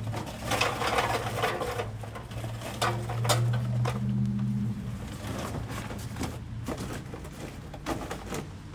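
Charcoal briquettes poured from a paper bag into a small kettle grill, clattering heavily for about the first two seconds and then in scattered clicks as the last lumps drop and the bag rustles. A steady low hum runs underneath.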